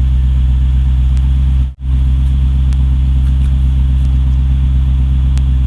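Jaguar XK8's V8 engine running steadily with a deep, even drone, cutting out briefly about two seconds in.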